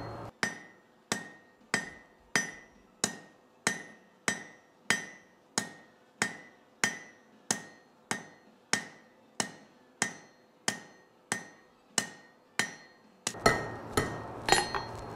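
Blacksmith's hammer striking a red-hot steel bar on an anvil in a steady rhythm of about one and a half blows a second, each blow ringing briefly, as the tip of a leaf is forged. Near the end a low hum comes in along with a few louder, uneven blows.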